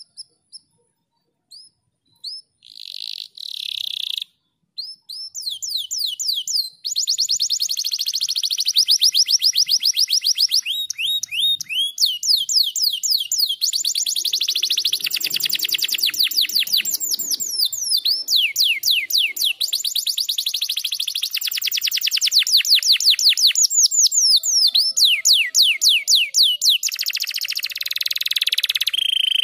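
Domestic canary singing a long, fast song: rolling trills of repeated notes that sweep down in pitch many times a second, changing pattern every few seconds, with a few single chirps at the start.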